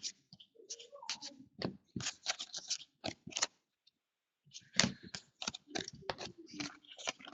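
Trading cards being handled and flipped through one by one: a run of short, sharp clicks and light scrapes, with a pause of about a second in the middle.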